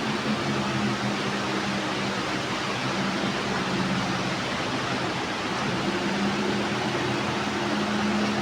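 Automatic HDPE bag-cutting machine running steadily: an even whir with a low hum.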